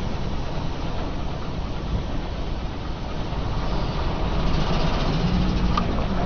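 Car engine running and tyres rolling slowly, a steady low rumble that grows louder about two thirds of the way through.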